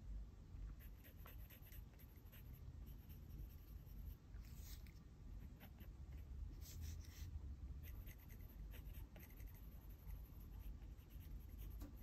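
Faint scratching of a Pentel GraphGear 500 0.5 mm mechanical pencil's lead on sketchbook paper, in short shading strokes, with a few louder runs of strokes in the middle.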